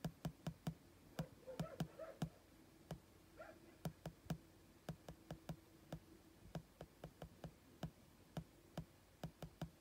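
Faint, irregular clicking, about four clicks a second, from scrolling through a page on a laptop.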